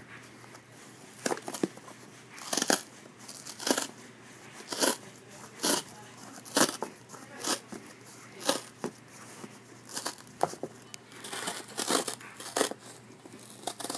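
Handcuff packaging being pulled and squeezed: short crunching, crinkling bursts about once a second as the handcuffs are worked out of a package that is hard to open.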